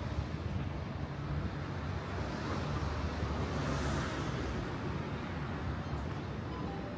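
A road vehicle passing close by: its tyre and engine noise swells to a peak about four seconds in and then fades, over a steady low rumble of city traffic.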